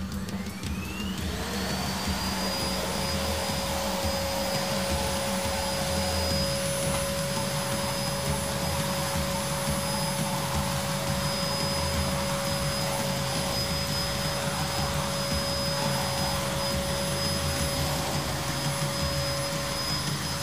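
Red canister vacuum cleaner running as it is pushed over carpet, its motor whine rising in pitch over the first couple of seconds as it spins up, then holding steady.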